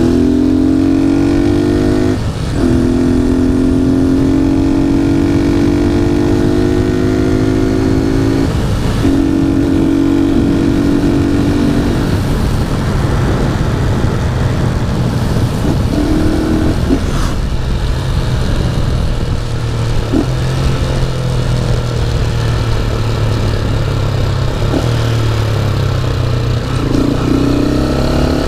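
Honda CG Titan 150 single-cylinder engine, bored 4 mm oversize and running through a Gemoto aftermarket exhaust, pulling up through the gears. It rises in pitch in each gear, with shifts about 2, 9 and 12 seconds in, then cruises with wind noise on the microphone.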